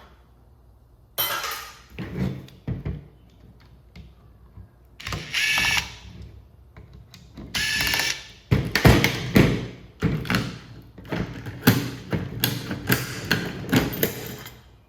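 Screws being backed out of a subwoofer amplifier's heat sink with a driver: two short whirring runs, then a dense string of ratcheting clicks and small metal rattles.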